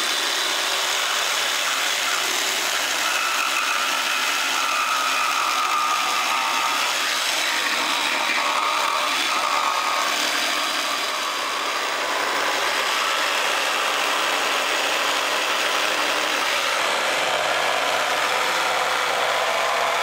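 Jigsaw running steadily as its blade cuts a curved live edge through a thick wooden slab countertop.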